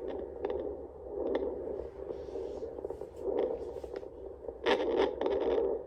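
Home fetal Doppler's loudspeaker giving womb noise, a rushing sound that swells and fades, with scraping and crackling clicks as the probe is slid over the gelled belly. No fetal heartbeat is picked up. A louder scraping stretch comes near the end.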